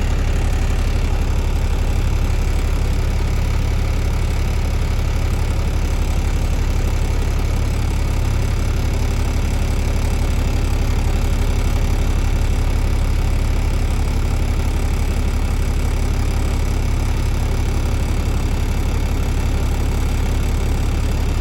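Semi truck's diesel engine idling: a steady low rumble that stays even throughout.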